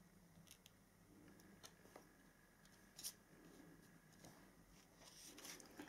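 Near silence, broken by a few faint small clicks and light rustles as metal tweezers set small quilled paper leaves onto a paper card; the clearest click comes about three seconds in.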